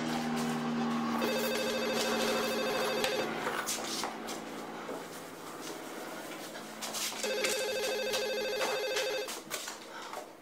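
Desk telephone ringing twice with an electronic warbling ring, each ring about two seconds long and the two about four seconds apart: an incoming call.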